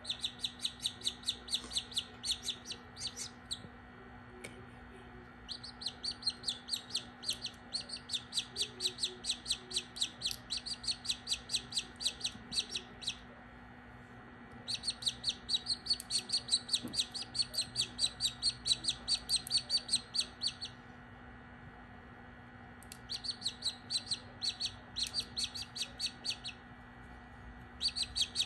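Australorp chick peeping in rapid, evenly spaced high peeps, about four a second, in bouts of several seconds with short pauses between them.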